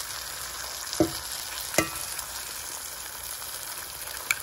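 Eggs and scrapple frying in butter in a cast-iron skillet, a steady sizzle. Two sharp knocks come about one and two seconds in, and a smaller click near the end.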